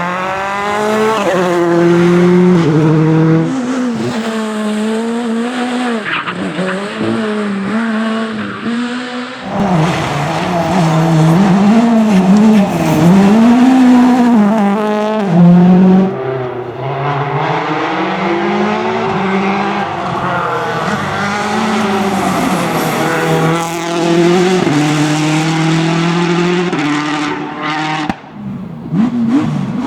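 Rally cars at speed on a stage. The engines rev high and drop in steps at each gear change, and the pitch swings up and down as the drivers work the throttle through corners. A short drop in level comes near the end.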